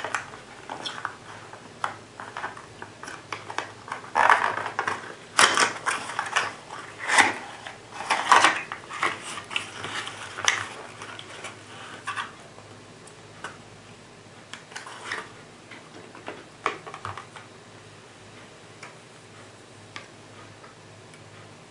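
A cardboard box of 12-gauge buckshot shotshells being opened by hand and the shells taken out and handled: scraping of the card and light clicks and taps of the shells. The handling is busiest in the first half and thins out to occasional ticks.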